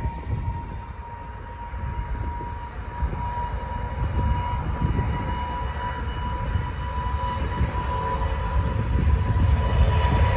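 Airbus A350 jet engines at takeoff power as the airliner rolls down the runway: a steady high whine over a low rumble, growing louder toward the end as the jet approaches and rotates.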